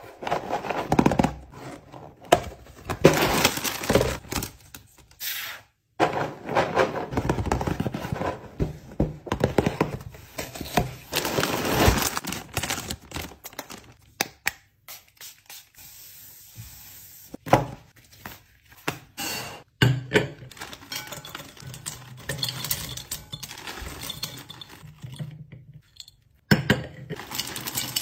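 A run of close-up handling sounds from packing: a cardboard cereal box handled, a plastic pump bottle's cap worked, and dry cereal pieces clinking as they pour into a glass jar. Dense clicks, rustles and clinks come in short clips with abrupt cuts between them.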